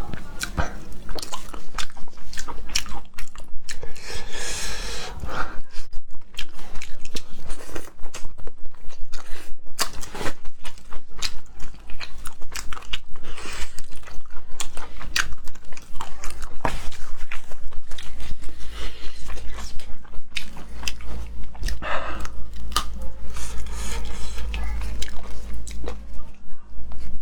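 Close-miked eating of seafood: repeated crunching, biting and chewing, with many sharp crackles and clicks.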